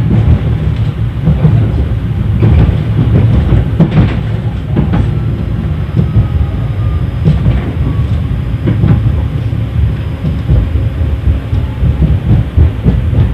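71-931 Vityaz low-floor tram running along the track, heard from inside the car: a steady low rumble with irregular clicks and knocks from the wheels over the rails. About five seconds in, a faint whine slowly falls in pitch.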